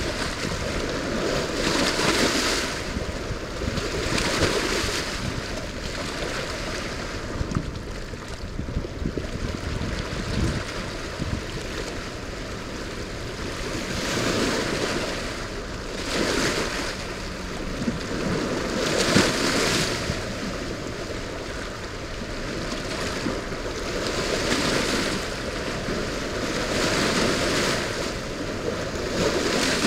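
Heavy, churning water from a dam's tailrace release, rushing steadily past the rocky bank, with wind on the microphone. The sound swells and fades every two to three seconds.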